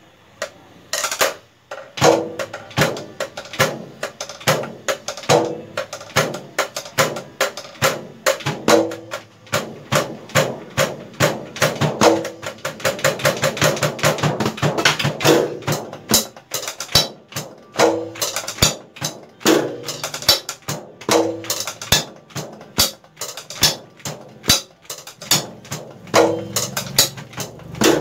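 Unamplified acoustic noise of a DIY electronic drum kit being played: sticks striking its pads and cymbals in a steady beat, starting about a second in, with a fast roll partway through.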